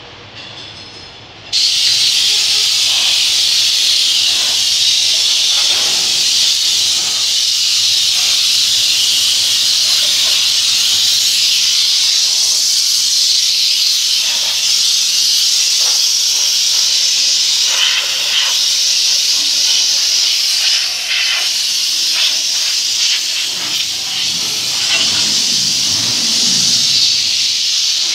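A compressed-air canister spray gun hisses steadily as it sprays the underside of a three-wheeler. It starts abruptly about a second and a half in, with a few faint clicks over the hiss.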